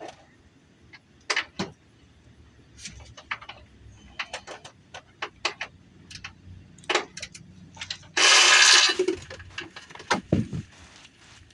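Scattered metallic clinks and knocks of hand tools and suspension parts as a front strut assembly is worked loose and pulled out. About eight seconds in there is one loud rasp lasting under a second, followed by a couple of heavier knocks.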